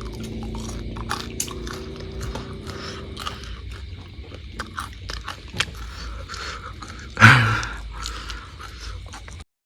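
Someone eating fried eel: crunching and chewing with many small sharp clicks, and one louder burst about seven seconds in. The sound cuts off abruptly near the end.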